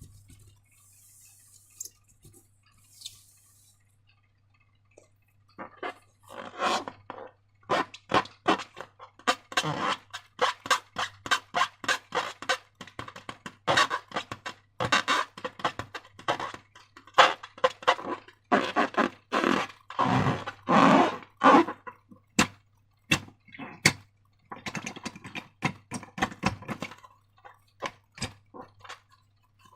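Slime being squished and worked by hand, giving a long run of irregular wet, sticky clicks and squelches. It begins after a few quiet seconds.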